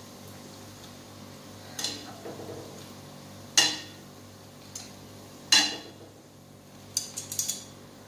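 Metal tongs clinking against a stainless steel frying pan and strainer while fried fish balls are lifted out of hot oil: sharp clinks about two seconds apart, then a quick cluster of clinks near the end. A faint steady sizzle of the frying oil sits underneath.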